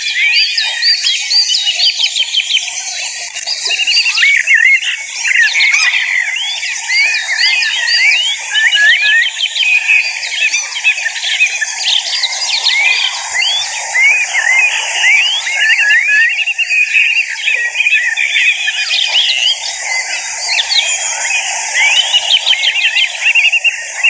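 A dense chorus of many small songbirds twittering and chirping, with quick rising and falling call notes overlapping one another without a break.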